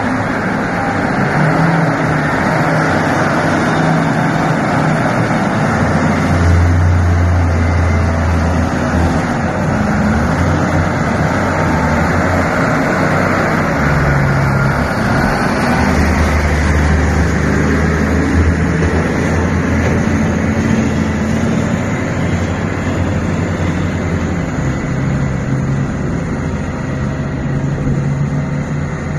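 A heavy vehicle's engine running with a steady, noisy roar. Under it a deep rumble swells and eases in spells of several seconds.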